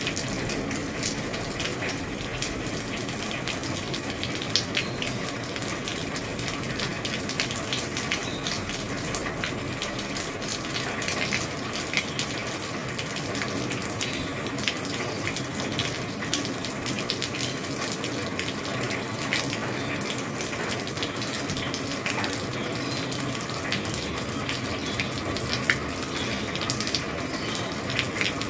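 Steady rain falling on an old roof: a constant hiss of rain dotted with many sharp, irregular drop ticks.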